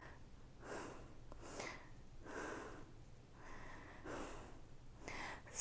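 A woman breathing quietly while she holds a yoga balance pose: about five soft breaths in and out, each under a second.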